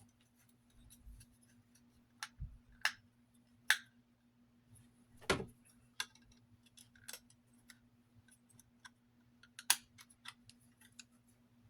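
Light clicks and taps of small plastic fan parts being handled and fitted, about ten irregular sharp ones, the loudest about five seconds in and again near ten seconds, over a faint steady low hum.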